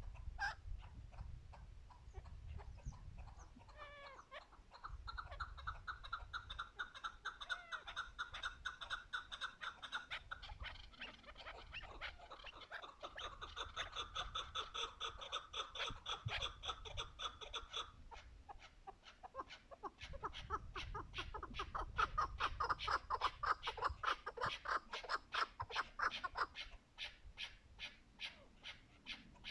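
Chukar partridge calling: a long, rapid series of clucking chuck notes at several per second. The run shifts in pitch and pattern about four seconds in and again past the middle.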